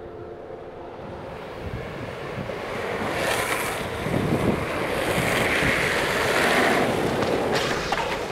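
Wind rushing over the microphone and the roll of longboard wheels on asphalt during a fast downhill run, swelling steadily over the first few seconds, with a few sharp clicks near the end.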